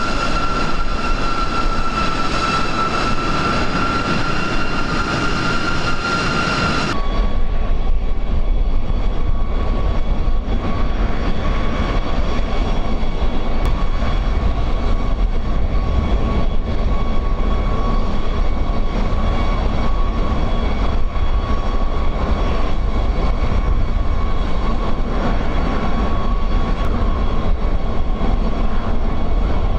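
B-52 bomber's jet engines running steadily: a high whine over a low rumble. About seven seconds in, the sound cuts abruptly to a slightly lower whine with a heavier rumble.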